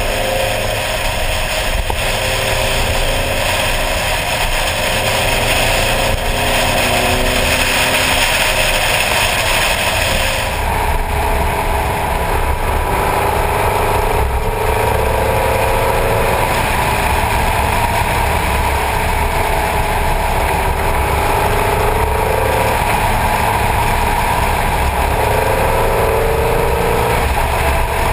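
Vintage car engine running at road speed, its pitch rising and falling with the throttle, over a steady rumble of wind and road noise. The sound changes character about ten seconds in.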